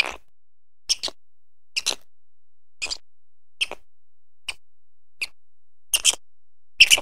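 Quokka biting and chewing a green leaf: a crisp crunch about once a second, some in quick pairs, the last two the loudest.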